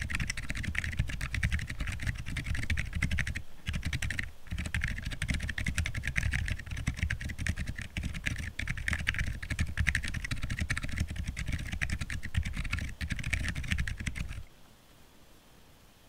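Fast typing on a handwired split keyboard with Akko Penguin silent tactile switches and 3D-printed keycaps: a rapid, continuous patter of keystrokes. There are two brief breaks about four seconds in, and the typing stops suddenly about a second and a half before the end.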